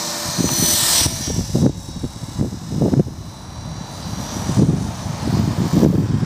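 An EXI 450 electric RC helicopter in an autorotation, with the motor powered off. Its steady whine fades out about a second in, leaving the unpowered main rotor's irregular low rushing whoosh.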